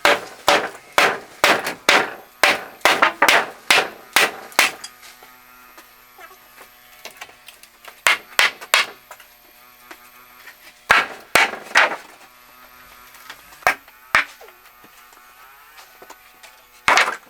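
Repeated hammer blows: a fast run of about a dozen sharp strikes, then a pause, then shorter groups of two or three strikes, and one last hard blow near the end.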